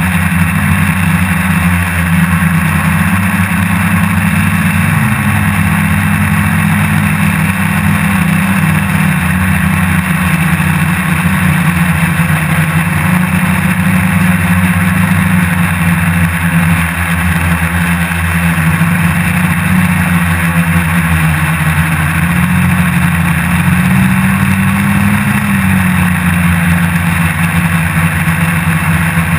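Hexacopter's electric motors and propellers humming steadily in flight, heard close up from the airframe itself. The pitch drifts slightly up and down as the throttle shifts, rising briefly about five seconds in and again near the end.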